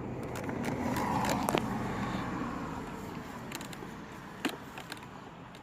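A car passing by, its noise swelling to a peak about a second in and then fading away, with a few sharp clicks.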